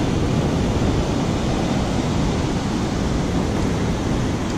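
Rough ocean surf breaking and washing up the beach, a steady rushing noise with wind on the microphone.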